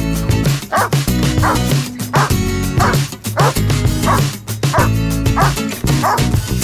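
Irish setter barking over and over, about one and a half barks a second, over background music with a steady beat.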